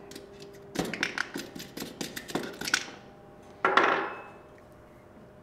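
Small steel fire-control parts of a Springfield Armory XDm Elite pistol clicking and rattling as they are pushed out of the frame, then one louder clack a little before the end as a spring gets loose.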